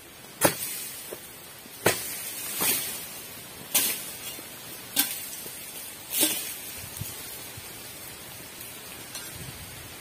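A dodos, a chisel blade on a long pole, striking up into an oil palm's frond bases to cut them away: about five sharp chops a second or two apart, with a few lighter knocks between them.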